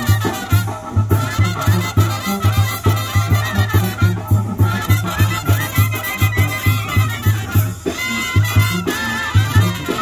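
Live Mexican brass band (banda) playing an instrumental passage: horns and reeds carry the melody over a steady, pulsing tuba bass line, about three to four bass notes a second.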